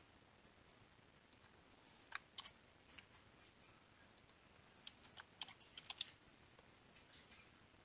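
Computer keyboard keystrokes: faint, scattered single clicks, then a quick run of several about five to six seconds in.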